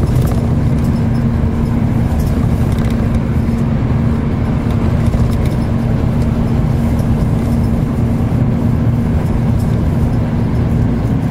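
Steady low rumble of a road vehicle driving along a highway, tyre and engine noise with a constant low hum running under it.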